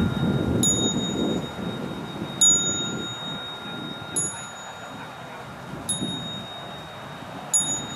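A small metal bell struck in a steady slow beat, five strikes about one and a half to two seconds apart. Each strike leaves a clear, high ring that carries on until the next one.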